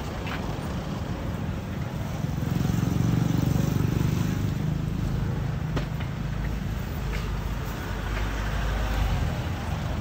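Road traffic passing close by: a vehicle's engine rumble swells about two and a half seconds in and fades, followed later by a steady low engine drone.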